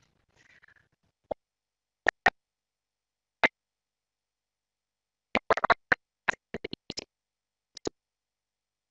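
Scattered sharp clicks and light knocks with silence between: single ones in the first few seconds, then a quick run of about eight between five and seven seconds in, and one more near the end.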